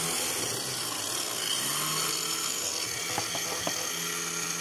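Russell Hobbs electric mini chopper running, its blades chopping green chillies, tomatoes and ginger. The motor hum runs steadily and dips briefly in pitch about a second in.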